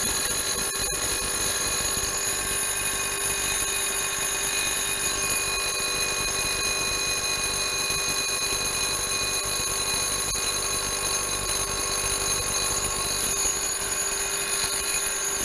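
Bridgeport milling machine spindle turning a slitting saw, hand-fed into an aluminum part to cut a slot. It gives a steady whine of several fixed pitches that does not change.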